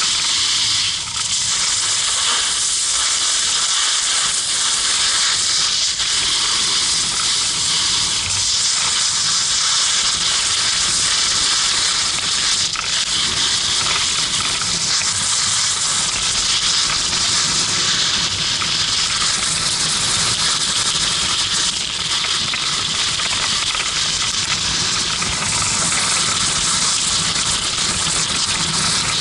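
Snowboard riding down a groomed slope: a steady hiss of the board sliding and carving over the snow, mixed with air rushing past the pole-mounted camera's microphone.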